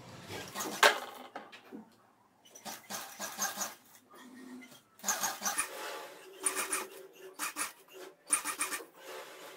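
Sewing machine stitching lace onto a kurti panel, running in short stop-start bursts as the fabric is fed through. There is a sharp click about a second in.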